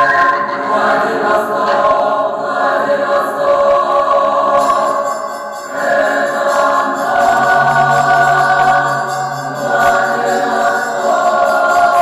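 A choir singing slow, held chords, the harmony moving to a new chord about six seconds in.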